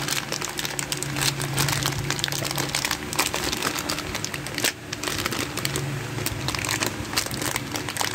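Clear plastic bag crinkling continuously as it is handled and pulled open by hand, in a dense run of irregular crackles.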